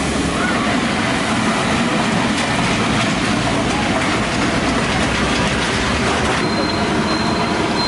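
Masala vadas deep-frying in a large kadai of hot oil: a steady sizzling, bubbling hiss, with street traffic noise underneath.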